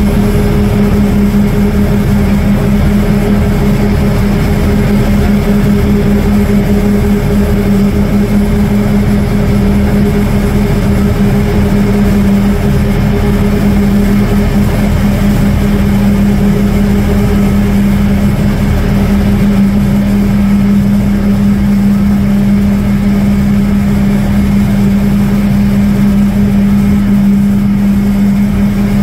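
Steady drone of heavy engines running, with a strong low hum that holds one pitch.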